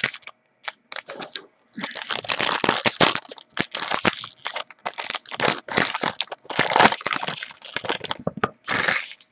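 A trading-card pack being opened and handled: packaging crinkling and crackling in irregular bursts, with short pauses between them.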